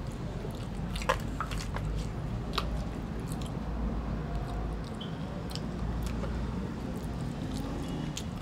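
A person chewing and eating charcoal-grilled mullet close to the microphone, with scattered small wet mouth clicks.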